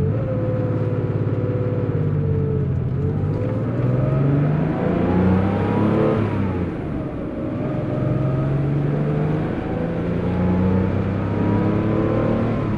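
1987 Porsche 911 Carrera's air-cooled 3.2-litre flat-six engine heard from inside the cabin while driving. The engine note rises under acceleration, drops back about six seconds in, and climbs again.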